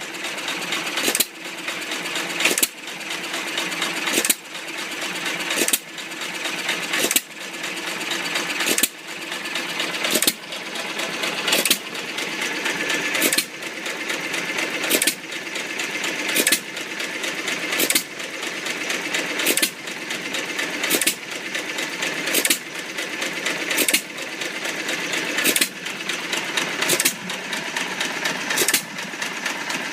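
Old creamery power-plant engine running on its first run after a rebuild: a sharp bang about every one and a half seconds, with rapid mechanical clatter between the bangs that grows louder toward each one.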